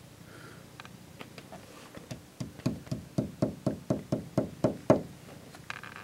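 A few faint clicks, then a quick, even run of about ten knocks, about four a second, the last one the loudest.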